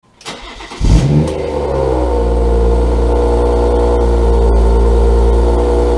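A car engine starting: it catches with a short rev flare about a second in, then settles into a steady idle.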